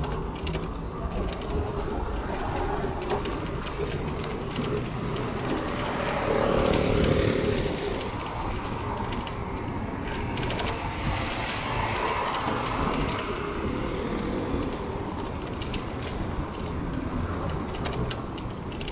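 Street traffic heard from a moving bicycle, with low wind rumble on the microphone and scattered light clicking. Vehicles swell past about six and again about eleven seconds in.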